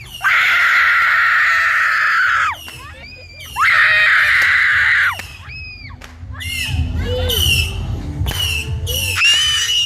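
Several voices screaming as loud as they can: two long held screams, then a string of shorter high-pitched shrieks.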